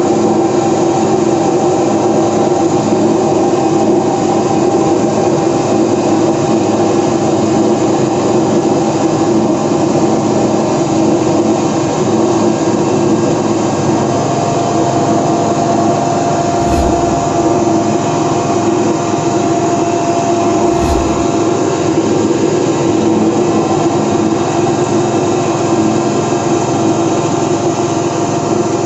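Tapioca flour processing machine running steadily with a loud, even mechanical drone; a higher steady whine joins about halfway through. Two brief clicks come in the second half.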